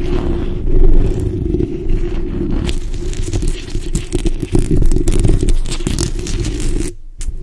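Long acrylic fingernails and fingertips scratching directly on the bare metal mesh grille of a Blue Yeti microphone. It makes a dense, continuous scratchy rustle with a heavy boomy rumble, and drops out briefly near the end.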